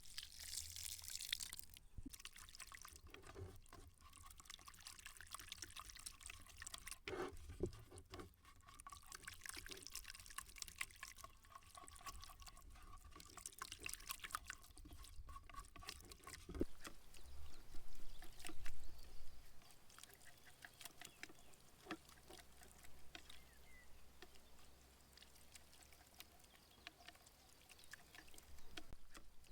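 Water pouring and trickling faintly, with many light clicks and taps and a few low thumps about two-thirds of the way through.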